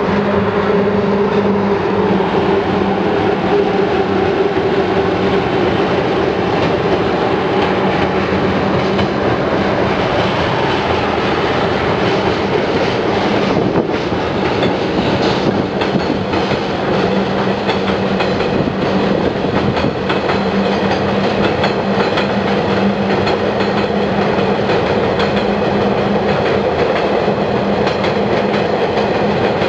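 A train running past at close range: a steady hum, with the wheels clicking over rail joints more and more from about halfway through.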